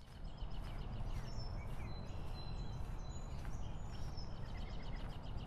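Outdoor ambience fading in: small birds chirping and trilling over a steady low rumble.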